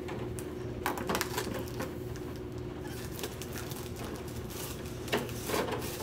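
Protective plastic film crackling and crinkling as it is peeled off a freshly painted polycarbonate RC short course truck body, in irregular clusters of small sharp crackles.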